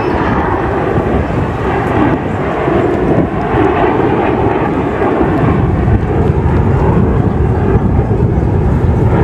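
Jet engines of a formation of military jets flying past at an airshow: a loud, steady rushing rumble that grows heavier and deeper about halfway through.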